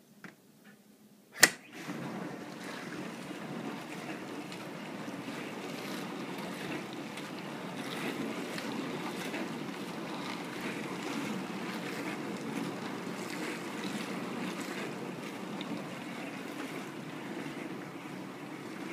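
A Maytag dishwasher: one loud click about a second and a half in, then the machine starts running with a steady rushing of water washing inside.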